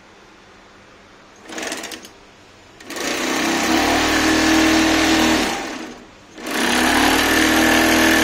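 Industrial woven-sack stitching machine running in bursts as it sews a woven sack: a brief blip about a second and a half in, then a steady run of nearly three seconds, a short stop, and another run near the end.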